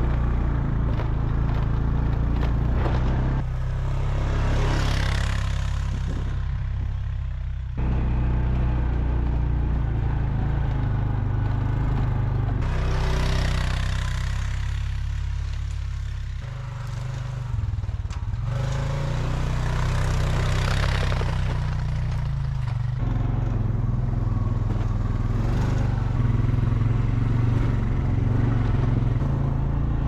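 Four-wheeler (ATV) engine running steadily as it drives through snow, towing a trailer that packs down the trail. It is heard mostly from on board, and the engine note shifts abruptly a few times.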